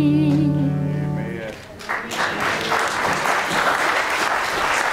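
A woman's solo hymn ends on a long held note with vibrato over a sustained accompaniment chord, fading out about a second and a half in. Just after, the congregation applauds.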